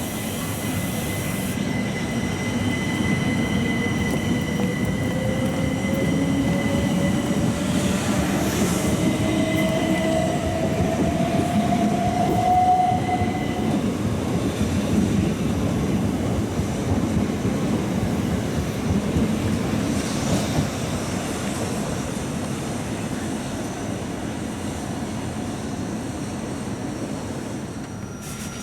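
A Southeastern electric multiple-unit train pulling away. Its traction motors whine, rising in pitch as it gathers speed over about ten seconds, above a rumble of wheels on rail and a steady high squeal. The rumble slowly fades as the train draws off.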